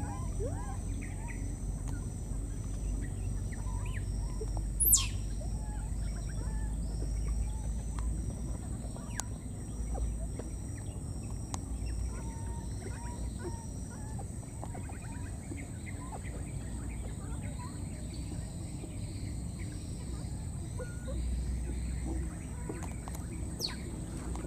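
A baby monkey making short, high-pitched cries over and over, with one loud rising squeal about five seconds in, over a steady outdoor background noise.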